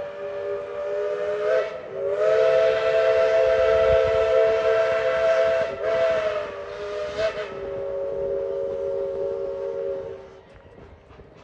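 The five-inch three-chime steam whistle of ET&WNC No. 12, a 1917 Baldwin narrow-gauge 4-6-0, blowing its chord in a series of blasts: one ending about a second and a half in, a long loud blast, a shorter one, then a softer held note that stops about ten seconds in.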